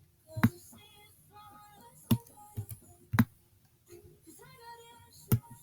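Computer mouse clicking: about five sharp separate clicks, the loudest sounds here. A song with singing plays faintly underneath.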